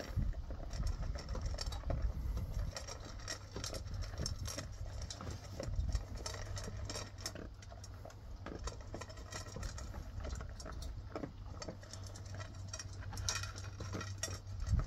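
Dogs eating from metal bowls: rapid, irregular clicks and crunches of chewing, with food knocking against the bowls, over a steady low hum.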